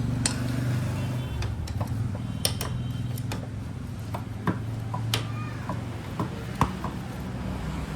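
Scattered sharp metallic clicks and clinks of tools being worked on a motorcycle, over a steady low engine hum.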